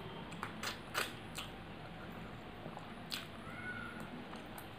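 Close-up mouth sounds of a person eating rice and curry by hand: a few sharp wet lip smacks and clicks while chewing, the loudest about a second in.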